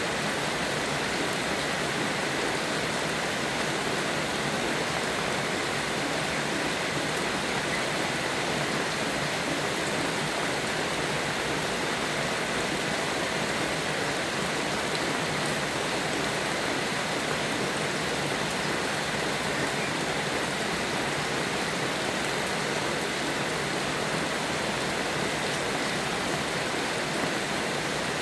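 Steady rain falling: an even, unbroken hiss that does not change.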